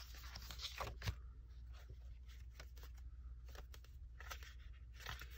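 Faint rustles and light taps of sheets of patterned scrapbook paper being laid down and shuffled on a desk, a few separate sounds, the clearest about a second in, over a steady low hum.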